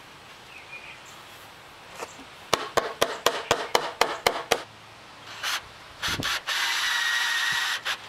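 A rubber mallet taps on a pressure-treated 4x4 post about ten times in quick succession, seating the glued notched joint of the cross-shaped base. Then a cordless drill gives a few short bursts and runs steadily for about a second and a half near the end, driving a screw into the wood.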